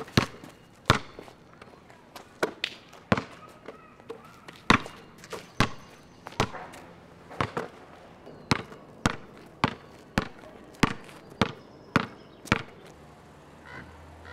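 Basketball dribbled on a concrete court: sharp single bounces, irregular at first, then falling into a steady rhythm of under two a second. The bouncing stops near the end and a low steady hum is left.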